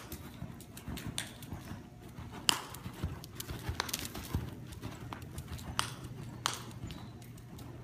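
Hoofbeats of a ridden horse on an indoor arena's sand footing: soft thuds with irregular sharp clicks, the loudest about two and a half seconds in, over a low steady hum.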